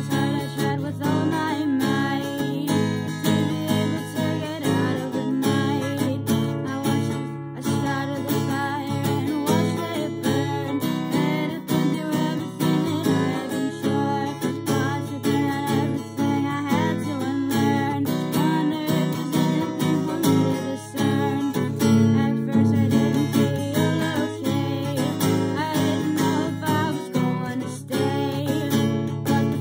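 Fender acoustic guitar strummed with a capo on the neck, steady chord strumming throughout, with a voice singing over it.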